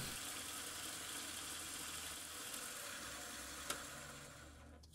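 Milling machine spindle running at its top speed while a tiny drill bores a small hole through a brass bar: a steady hiss that fades out near the end, with one short click about three and a half seconds in.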